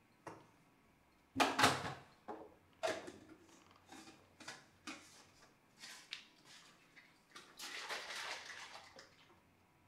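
Kitchen clatter from someone working at a counter: a series of knocks and clinks of things being picked up and set down, the loudest about one and a half seconds in, then a longer rush of noise lasting over a second near the end.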